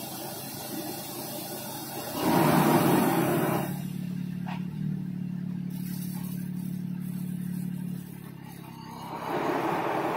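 Small tractor engine running while it pulls an air-blast orchard sprayer, the sprayer's fan blowing out spray mist. The sound swells loudly about two seconds in for a second or so, settles to a steady hum, dips shortly before the end and rises again.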